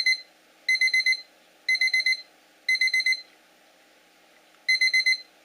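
Alarm-clock beeper rewired as a fishing bite alarm, sounding its high-pitched beep in groups of four quick beeps about once a second, with a pause of over a second near the middle before it resumes. It is signalling a bite as the spring bite-indicator tip is moved and closes the contact.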